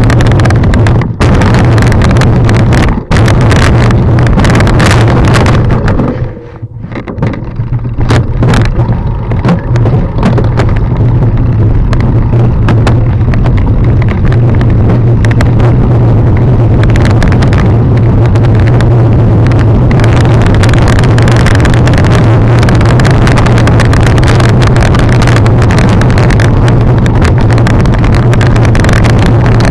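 Loud wind buffeting and rattling on a camera carried at speed down a rough downhill singletrail, with a deep steady rumble underneath. It drops away briefly about six seconds in, then comes back.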